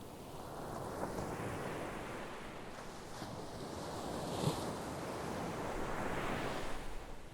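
Ocean waves washing onto the shore: a surging wash that builds and swells into a louder hiss near the end, then falls away.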